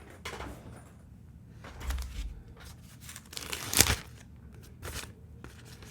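Packaging rustling and crinkling as a keyboard case is unwrapped by hand, with a sharp knock a little under four seconds in.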